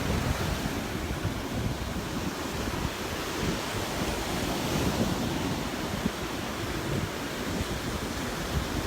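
Gulf of Mexico surf washing onto the beach, mixed with wind buffeting the microphone.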